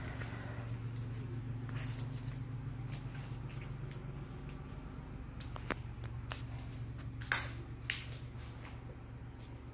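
Footsteps and light knocks while walking into a wooden log cabin, with scattered clicks over a steady low hum. The two loudest knocks come about seven and eight seconds in.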